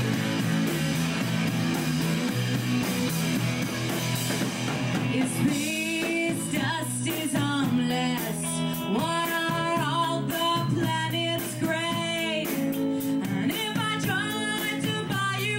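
Live rock band playing a song with electric guitar and drums. About five seconds in, a melodic line with bending, sliding pitches comes in over the band.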